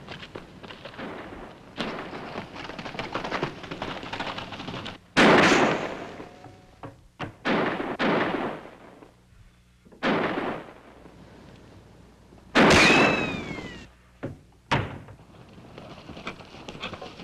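Revolver gunshots in a gunfight, sharp cracks coming every second or few. One loud shot about twelve and a half seconds in is followed by a falling ricochet whine. Near the end a horse gallops, its hoofbeats a soft patter.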